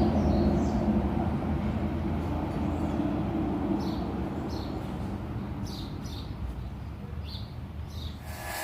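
Highway traffic: a vehicle's low rumble slowly fading away, with birds chirping now and then.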